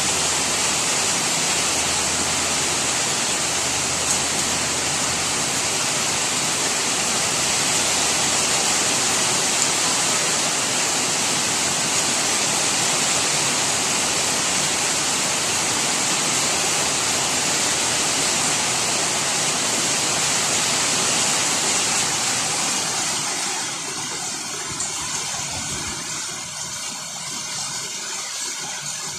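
Heavy rain falling in a steady hiss; about three quarters of the way through it thins out and gets quieter.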